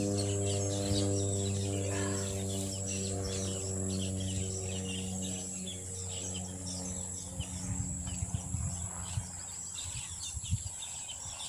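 Outdoor ambience of birds chirping and insects buzzing steadily, over a low steady drone that fades away over the first half. A few short soft knocks come in the second half.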